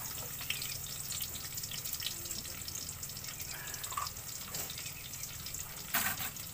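Ingredients sizzling in hot oil in a pot over a wood fire: a steady crackling hiss full of small pops. A louder, sharp clatter comes near the end.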